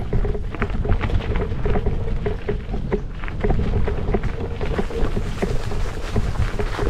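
Gravel bike on 43 mm Panaracer GravelKing tyres rolling over a rough gravel track. Stones crunch and tick under the tyres and the bike rattles over a steady low rumble, in a dense, irregular patter of small clicks and knocks.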